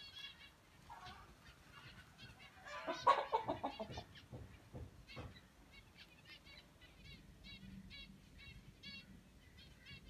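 Birds chirping: short high chirps repeat all through, and about three seconds in there is a louder, lower call, rapidly repeated for about a second.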